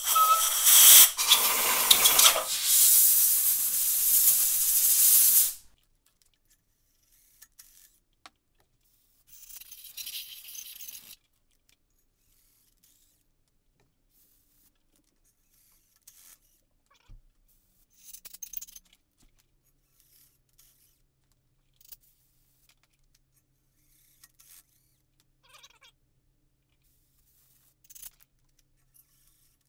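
Compressed-air blow gun blasting into the threaded bolt holes of an engine block's deck, clearing out dirt and rust knocked loose by a thread chaser: one long hiss of about five seconds, then a shorter, thinner one a few seconds later. After that come only faint clicks of hand tools.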